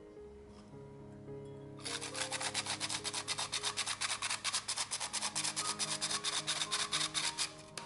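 Powdered sugar being sifted through a fine-mesh sieve: a rapid, rhythmic rasping of about nine strokes a second that starts about two seconds in, over soft background music.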